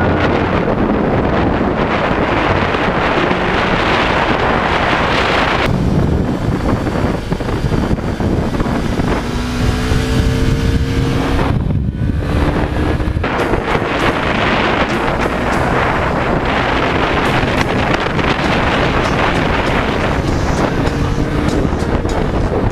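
Wind rushing over the microphone on a moving Bajaj Pulsar 200 motorcycle, with the single-cylinder engine underneath. Around the middle the engine note climbs in pitch, cuts out briefly about twelve seconds in, then comes back lower and climbs again.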